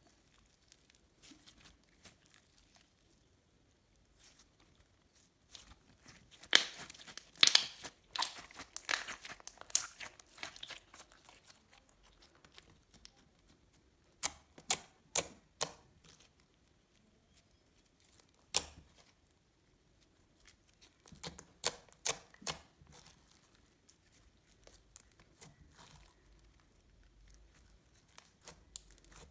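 Slime being squished and stretched by hand, giving clusters of sharp clicking and popping sounds in several bursts with quiet gaps between.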